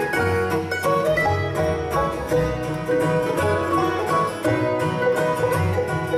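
Acoustic bluegrass band playing an instrumental intro in waltz time: mandolin, flatpicked acoustic guitar and banjo over an upright bass.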